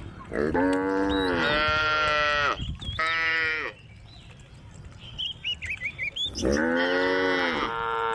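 Cows mooing: a long moo of about two seconds, a short one right after, and another long moo near the end.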